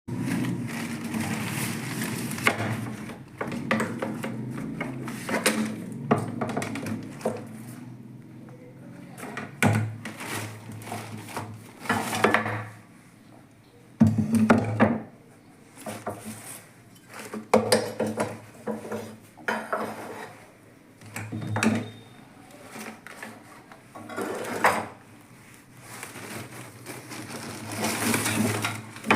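Handling noise from unboxing a soldering iron kit: irregular clicks and clatters of hard parts being picked up and set down, with rustling of the packaging.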